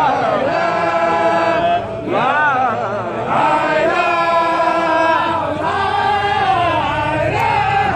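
Crowd of men chanting Mouride religious verses in unison, in long held phrases, with a swooping rise and fall in pitch about two seconds in.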